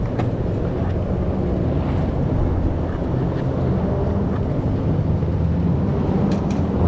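Skateboard wheels rolling over street pavement: a steady, loud rumble with a few faint clicks from cracks and joints.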